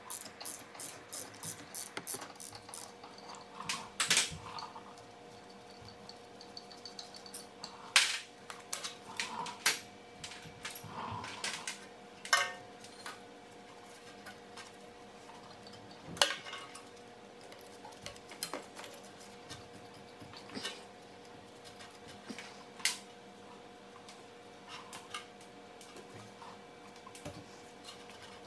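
A ratchet wrench clicks rapidly as a rear brake caliper bolt is backed out, then scattered sharp metal clinks and knocks follow as the caliper is worked free of its bracket and lifted off the rotor.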